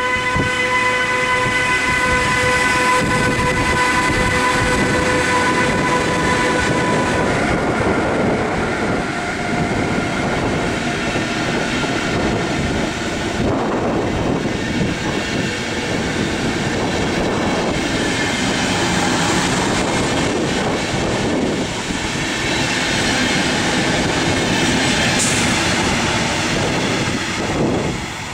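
Intercity train hauled by a Deutsche Bahn class 101 electric locomotive passing at speed, with a steady rushing and rumbling of coach wheels on the rails. A steady high tone with overtones runs through the first seven seconds or so, then fades into the rolling noise. The noise drops away near the end as the driving trailer goes by.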